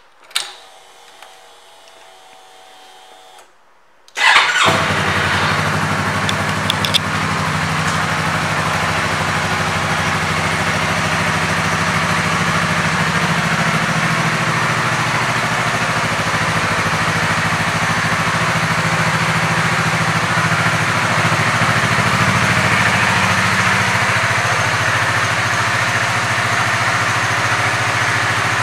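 The 2019 Yamaha YZF-R3's parallel-twin engine, fitted with an aftermarket exhaust, starts about four seconds in after a few quiet seconds and settles into a steady idle.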